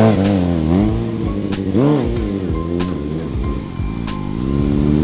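Sport-bike engine revving up and dropping back again and again, a rise and dip every second or two, as the clutch is pulled and let out in clutch bumps to keep the bike up on its back wheel in a wheelie.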